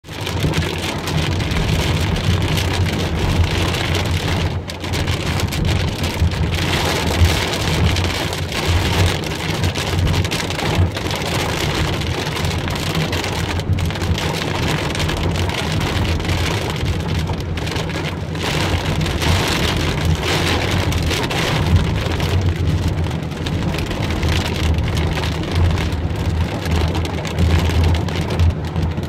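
Heavy rain beating on a car's roof and windshield, heard from inside the moving car, over a steady low rumble from the car and its tyres on the wet road.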